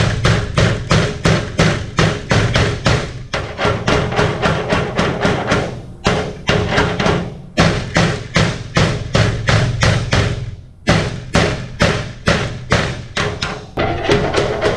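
Background music with a steady percussive beat, about three beats a second, breaking off briefly twice.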